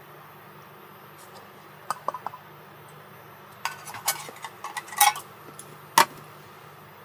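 Dishes and cutlery clinking and knocking as they are handled: a few light clicks about two seconds in, a cluster of sharper clinks a little later, and one loud knock near the end.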